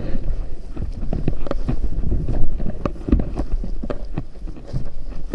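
Wind rumbling on the microphone, with many short knocks and rustles from handling and movement.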